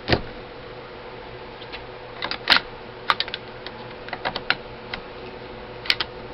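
Irregular metal clicks and light knocks of an AK-47's bolt and bolt carrier being worked into the receiver, with a louder knock at the start and another about two and a half seconds in. A faint steady hum runs underneath.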